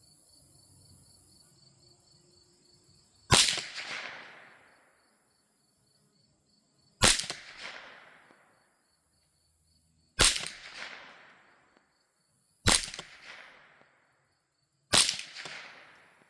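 Five shots from a Savage A22 semi-automatic .22 LR rifle firing Remington Golden Bullet ammunition, each a sharp crack followed by about a second and a half of fading echo, spaced a few seconds apart.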